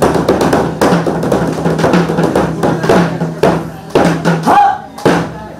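Large dragon-painted Korean barrel drums (buk) struck with wooden sticks in a rhythm of roughly two beats a second, over music with a steady held low note. The strikes stop about five seconds in.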